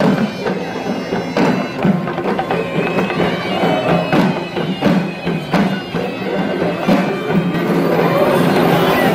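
Traditional Sri Lankan procession drums beating in loud, uneven strokes over a droning reed pipe. Near the end, crowd noise rises and thickens into shouting.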